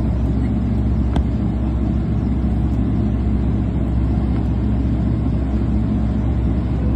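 Steady low rumble of a Boeing 777-300ER's engines and airframe as heard inside the passenger cabin behind the wing.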